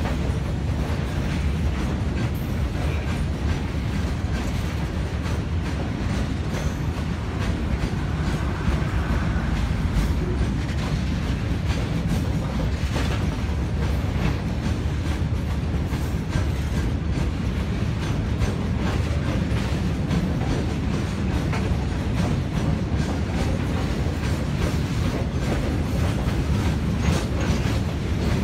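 A RORO freight train of loaded lorries on low flat wagons running steadily past, its wagon wheels clicking over the rail joints.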